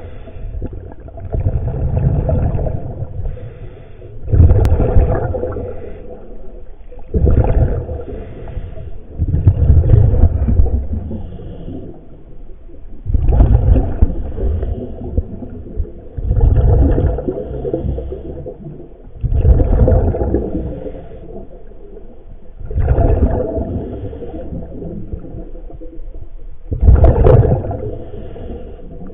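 A scuba diver breathing through the regulator, recorded underwater: a rumbling, gurgling rush of exhaled bubbles about every three seconds, about nine times, with a steady low hiss between breaths.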